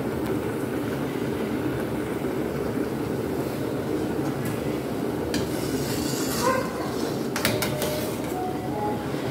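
A metal ladle scraping and knocking against a large pan as soup is stirred on the stove, about five seconds in and several times near the end, over a steady low rumble.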